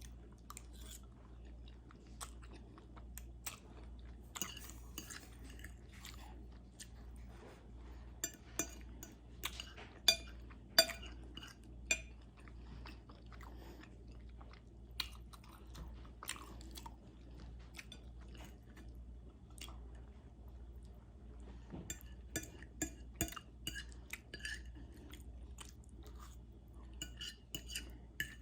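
Close-miked chewing of spaghetti with meat sauce: wet mouth sounds and lip smacks broken by many short sharp clicks, the loudest about ten seconds in, with a busy run of clicks a little past twenty seconds. A faint steady low hum sits underneath.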